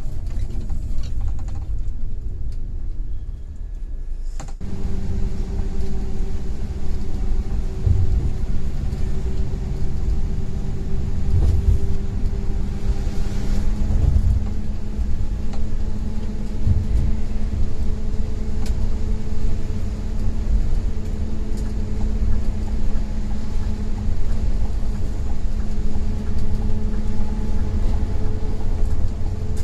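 Scania coach on the move: a steady low rumble of engine and road, with a faint steady whine. About four seconds in the sound changes abruptly to a fuller, steadier hum.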